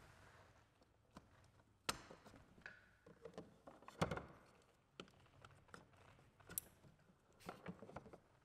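Quiet handling noise from the foot-pedal steering gear of an inflatable kayak: scattered light clicks and knocks as the pedals and lines are handled against the hull, with the loudest knock about four seconds in.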